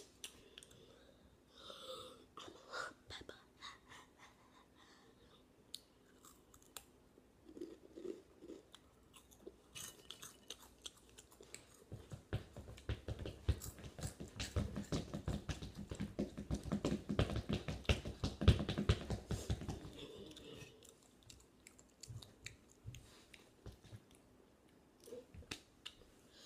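Hot Cheetos being chewed: scattered crunches at first, then a dense run of louder, rapid crunching for several seconds in the middle.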